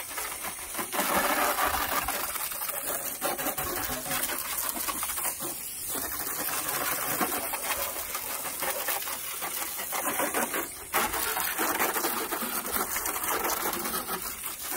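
Garden hose spraying water onto a riding lawn mower's engine and plastic body panels: a steady hiss and splatter, letting up briefly twice, about six seconds in and near eleven seconds.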